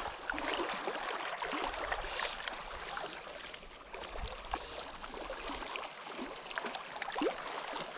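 Water sloshing and trickling, with scattered light clicks and rustles.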